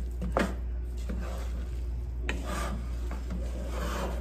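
A spoon stirring and scraping through a big pot of fried rice with chicken in a nonstick pot, a steady run of rough scraping strokes with a few sharper scrapes.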